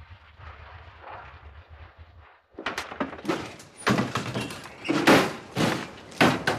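A faint low vehicle engine hum. Then, from about two and a half seconds in, a run of about six loud thunks and slams as jeep doors are banged shut, mixed with footsteps.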